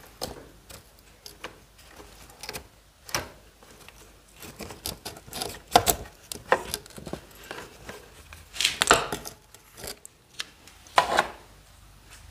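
Metal clicks, taps and scrapes of a small scooter carburetor being taken apart by hand: the throttle slide and its spring pulled from the carburetor body and the carburetor worked loose. The loudest clacks come about halfway through and near the end.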